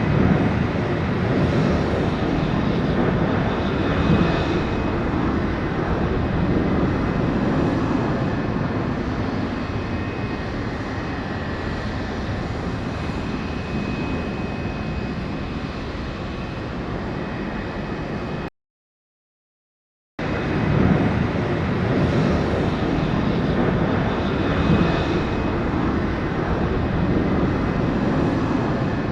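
Steady aircraft engine noise at a landing field, with a faint thin high whine over it. It cuts out completely for about a second and a half about two-thirds of the way through, then starts again.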